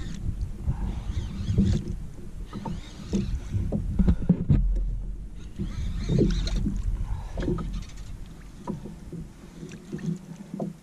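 Water sloshing and slapping against a plastic kayak hull, with a low rumble of wind on the microphone and scattered knocks as the rod and reel are worked against a hooked fish.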